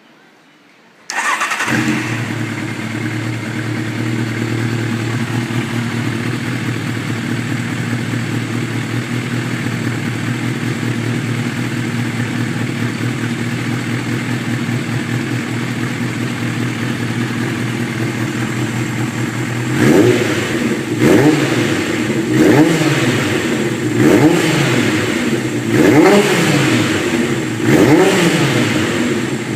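Kawasaki Zephyr 1100's air-cooled inline-four engine starting about a second in and settling into a steady idle. In the last ten seconds the throttle is blipped six times, each rev rising and falling back to idle.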